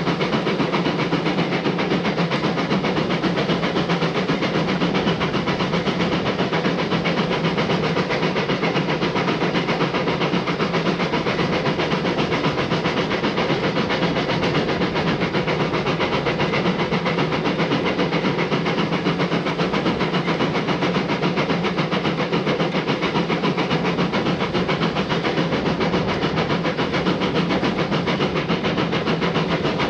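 Narrow-gauge steam locomotive running steadily along the line, with an unbroken hiss of steam and a fast, even flutter in the sound.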